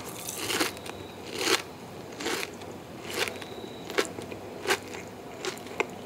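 Crunching of crisp breadcrumb-coated fried calamari (hanchi) being bitten and chewed, a sharp crunch roughly every second.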